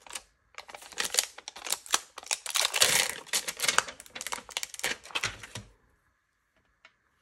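Sheet of clear stamps crinkling and crackling as it is flexed and a stamp is peeled off its plastic carrier sheet: a rapid run of small clicks that stops near the end.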